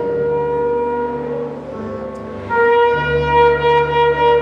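A shofar sounds one long held note over soft keyboard accompaniment. About two and a half seconds in the horn's note grows louder and then swells and eases in steady pulses.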